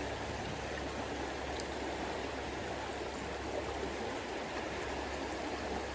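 Steady rushing of flowing river water, an even noise with no separate splashes or strokes.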